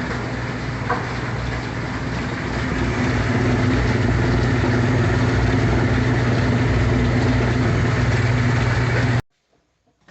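1962 Bendix Economat washing machine running, its motor humming steadily. It grows a little louder about three seconds in, then cuts off suddenly near the end.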